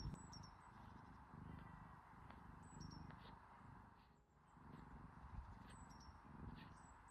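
Cat purring softly, the purr swelling and fading in a steady rhythm with its breathing. A few faint, very high two-note chirps sound over it, about three seconds in and again near the end.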